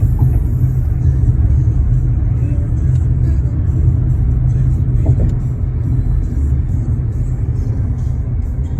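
Steady low rumble of a moving vehicle, with music faintly underneath.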